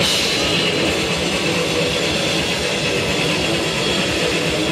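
Hardcore punk band playing live through amplifiers: a loud, steady wall of distorted electric guitar and cymbal noise.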